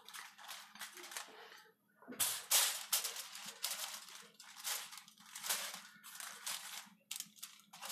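A hand rubbing marinade into a whole red snapper lying on aluminum foil: irregular crackling rustles of the foil and wet rubbing strokes, with a short pause a little before two seconds in.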